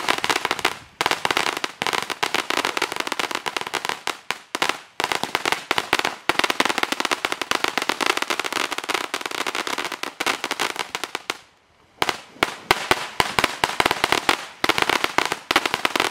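Ground fountain firework spraying sparks: a dense, rapid crackling of many sharp pops. It has a few brief lulls and one short pause about three-quarters of the way through, then crackles on.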